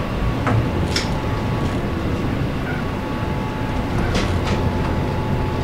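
Train running over snowy track as heard inside the driver's cab: a steady low rumble with a few sharp clicks from the wheels passing over track joints, one about a second in and two close together around four seconds.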